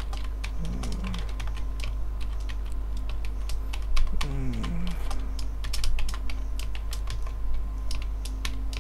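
Typing on a computer keyboard: quick, irregular key clicks as a line of code is entered, over a steady low electrical hum.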